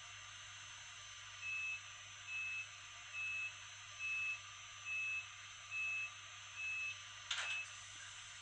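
Sound decoder of a Fleischmann N-scale ICE-T model playing the door-closing warning: eight short, evenly spaced high beeps, starting about a second and a half in. A brief burst of noise follows near the end, over a faint steady background.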